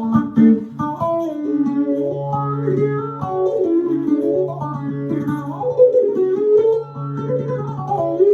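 Electric bağlama (long-necked Turkish saz) played with a plectrum: quick melodic runs of plucked notes rising and falling over a recurring low drone note.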